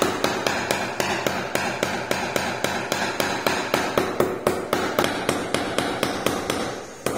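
Rubber mallet tapping repeatedly on a ceramic floor tile, about four quick, even taps a second, seating the tile onto tile adhesive injected along its joint.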